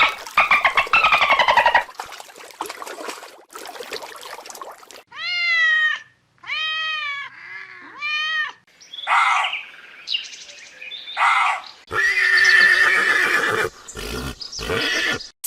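A series of different animal calls one after another. It opens with a horse whinnying, a quavering call that falls in pitch. Four short, arched, pitched cries follow in a row around the middle, then several other calls near the end.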